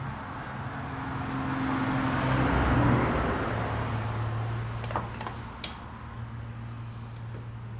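A road vehicle passing by, swelling to a peak about three seconds in and then fading, over a steady low hum. A couple of light metallic clinks come around five seconds in.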